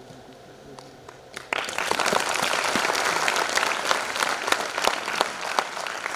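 Audience applause and clapping that breaks out suddenly about a second and a half in, from many hands, and begins to thin near the end.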